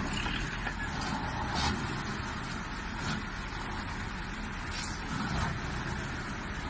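Heavy vehicle engine running steadily, with a few faint knocks.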